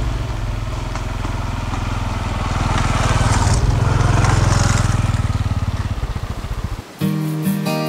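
Honda CT125's 125 cc single-cylinder engine as the motorcycle rides past, louder as it draws level with tyre noise on the wet mud, then fading as it moves away. About seven seconds in it cuts off and acoustic guitar music begins.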